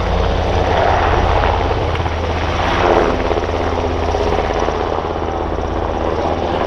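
NH90 twin-turbine transport helicopter in low flight, its rotors and turbines running steadily, briefly louder about three seconds in.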